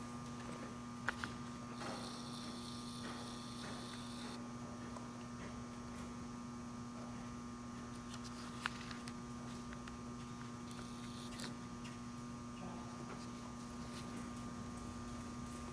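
A steady electrical hum, with a few sharp ticks about a second in and again near the middle.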